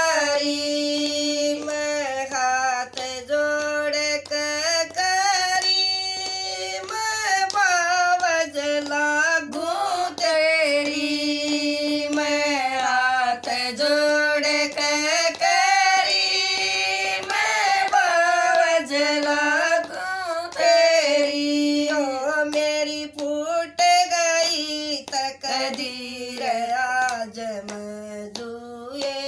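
Two women singing a bhajan together in a folk melody, one keeping time by clapping her hands.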